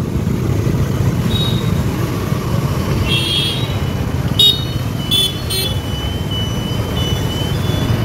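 Street traffic heard from a moving motorcycle: a steady low rumble of engine and road, with short high-pitched vehicle horn toots about three seconds in and several more between four and six seconds. A thin high tone lingers through the last few seconds.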